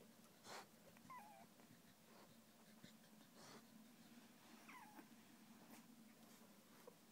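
Three-week-old Staffordshire bull terrier puppies making faint squeaky whimpers, two short wavering ones, about a second in and near the five-second mark, the second falling in pitch, among soft breathy snuffles.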